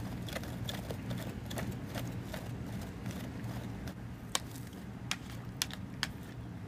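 Scattered sharp clicks and ticks over a low steady hum, with a few louder clicks in the second half.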